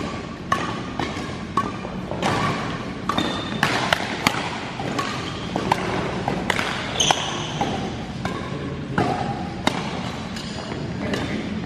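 Badminton rackets hitting a shuttlecock in a rally: sharp, irregular smacks echoing in a large sports hall, with hits from neighbouring courts and a few brief shoe squeaks on the court floor.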